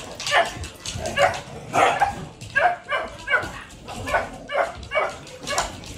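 Several dogs barking and yipping at one another while they play, a steady run of short barks about two a second.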